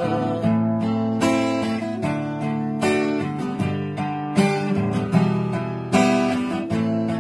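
Acoustic guitar strummed in chords, an instrumental closing passage of a folk song after the last sung line, with a strong strum roughly every second and the chords changing.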